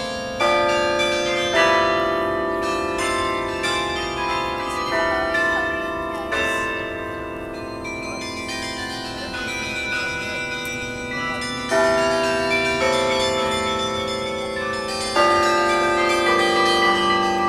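Carillon bells played as music: melody notes and chords struck on several bells at once, each bell ringing on after it is hit. Louder chords come about half a second in, near two seconds, near twelve seconds and about fifteen seconds in.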